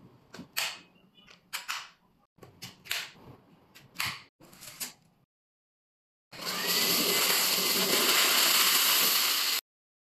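Plastic clicks and knocks as the motorised floor brush is fitted and latched onto the wand of a Moosoo TD1 cordless stick vacuum. After a pause, the vacuum's motor starts with a rising whine and runs with a loud, steady rush of air, then cuts off suddenly.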